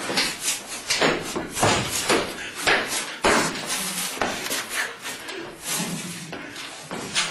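A long metal pole swung hard through the air again and again, giving quick irregular whooshes about two a second, mixed with thumps and scuffs of feet stomping and turning on a bare floor.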